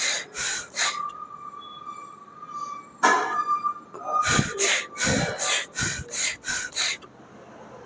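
A man's sharp, forceful breaths through mouth and nose while he presses heavy dumbbells, about three a second. They pause about a second in and start again about three seconds in.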